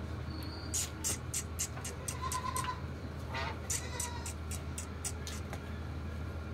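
A restrained goat bleats briefly, over a run of short, sharp, high-pitched clicks and a steady low hum.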